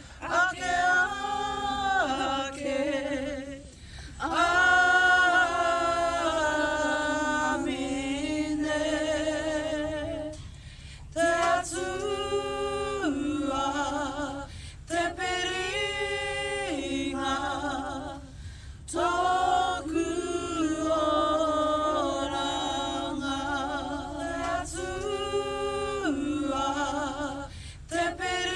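A group singing a Māori waiata unaccompanied, several voices together in long held phrases with short breaks for breath between them.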